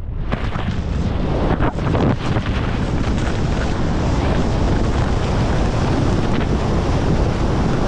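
Wind buffeting a helmet-mounted action camera's microphone as a skier descends fast, a steady low rumble, with the skis scraping and chattering over firm, chopped spring snow, most sharply in the first couple of seconds.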